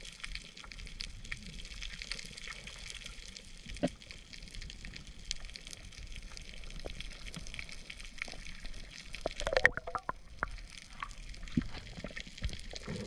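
Underwater coral-reef ambience picked up by a camera in its housing: a steady crackle of many tiny sharp clicks over a hiss, the typical sound of snapping shrimp on a reef. About nine and a half seconds in comes a short, louder burst with a wavering pitch.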